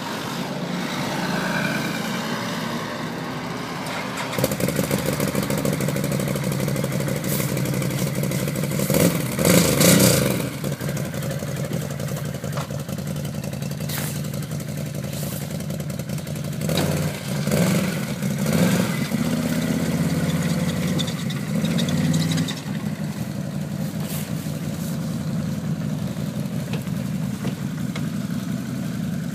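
Engine of a Can-Am ATV fitted with snow tracks, cutting in abruptly about four seconds in and then running steadily, with a burst of revving around ten seconds and more revving a few seconds later.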